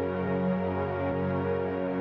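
Soft ambient background music: sustained, slow-moving synthesizer and keyboard chords.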